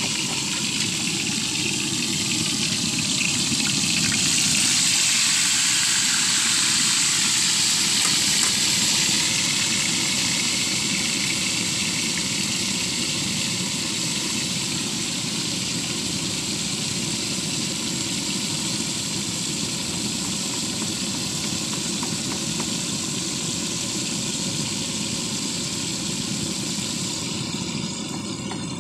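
Oil sizzling steadily as pieces of meat deep-fry in a wok over a hose-fed gas ring burner, with the burner's steady roar underneath. Near the end the hiss eases and a few short crackles come through.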